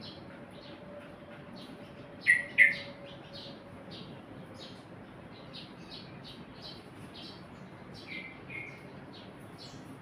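Caged yellow-vented bulbul (trucukan) calling: a run of short high chirps, two to three a second, with two loud calls in quick succession about two seconds in and two softer ones about eight seconds in.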